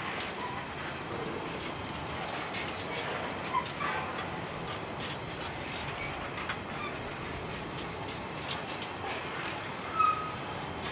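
Empty coal hopper wagons rolling past: a steady run of steel wheels on rail, clicking over the joints, with a few short high wheel squeals, the loudest about ten seconds in.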